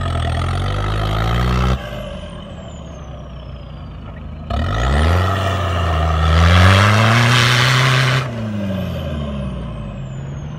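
Toyota Hilux Surf's 3.0 turbo-diesel engine revving hard in two bursts as the wheels spin in deep snow. The first burst cuts off sharply about two seconds in. The second lasts about four seconds and brings a loud hiss of spinning tyres and thrown snow at its peak. A thin high whistle rises and falls with the revs.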